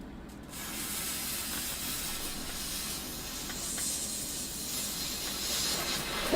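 A lit firework hissing steadily, starting about half a second in.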